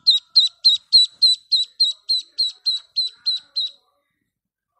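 A bird's call: a rapid, even series of short, high chirps, about three and a half a second, stopping shortly before the end.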